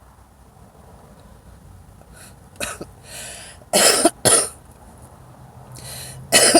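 A woman coughing from cigarette smoke. After two quiet seconds comes a run of short coughs, the loudest pair about four seconds in and more near the end.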